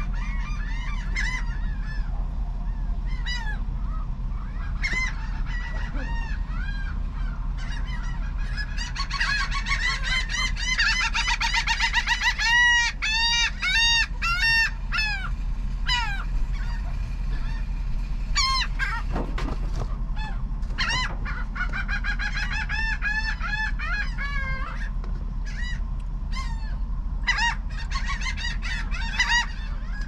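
A flock of gulls calling over one another: many short cries that rise and fall in pitch, thickest in a run of quickly repeated calls around the middle. A steady low hum lies underneath.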